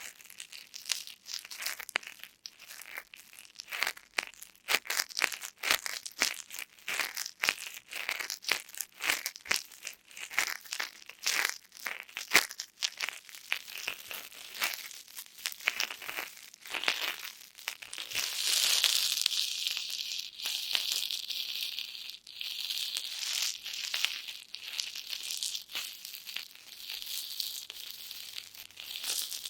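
Star-shaped foam cushion sponges (gift-wrapping filler) squeezed by hand, giving a squishy, crackling sound. Separate crackles come first, then about two-thirds of the way in a denser, louder, continuous crackle.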